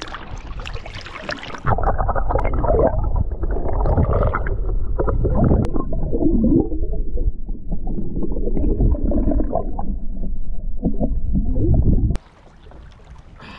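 Water sloshing at the surface, then from about two seconds in the muffled, low gurgling and rumbling of seawater heard through an action camera held underwater. It cuts off suddenly near the end.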